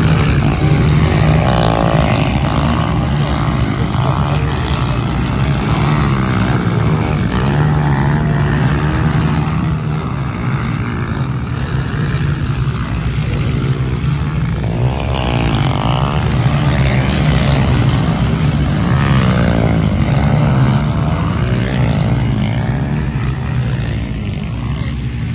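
Several pit bikes racing past, their small motorcycle engines revving up and down, with pitch sweeps rising and falling as bikes come and go.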